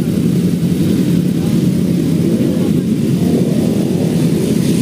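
Inline-four superbike engine idling steadily, with no revving.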